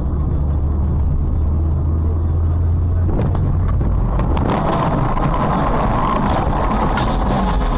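Car driving in traffic, heard from inside on a dashcam: a steady low rumble of engine and road noise. From about halfway through, a rougher, harsher noise joins it and runs until near the end.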